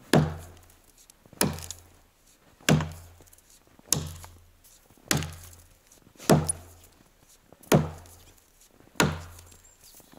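Hand-forged Burunduk axe chopping into the trunk of a dry standing tree: eight even strokes, about one every 1.3 seconds, each a sharp knock that dies away quickly.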